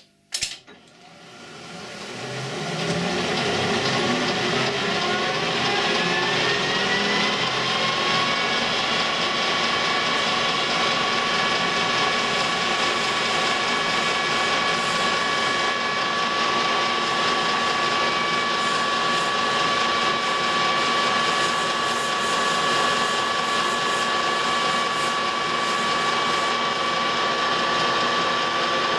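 Colchester metal lathe, run from an inverter, spinning up: a rising whine climbs over about eight seconds, then the lathe runs at steady speed with a constant whine over machine noise.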